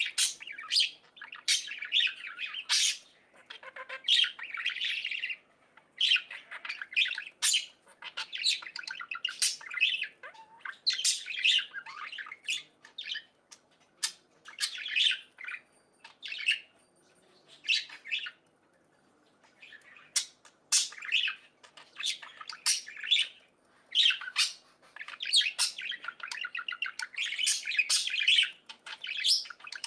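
Budgerigars chirping and chattering in quick clusters of short, sharp calls, with a brief lull a little past halfway.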